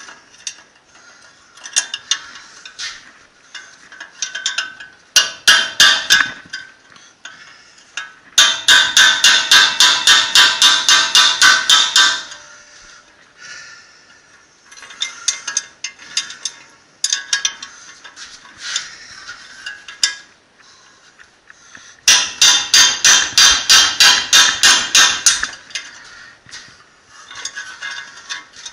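Hammer blows on steel at a Jaguar XJ rear hub carrier held in a vise, knocking out the wheel bearing cups. A few scattered strikes, then two long, fast runs of about four or five ringing blows a second, one about a third of the way in and one near the end.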